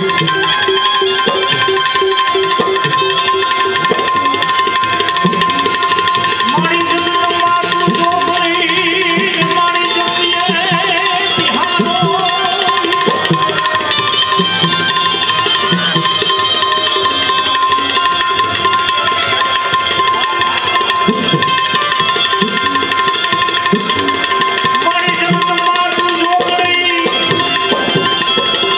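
Bhajan music: a tabla keeps a steady rhythm beneath a wavering melody line, over a held drone tone.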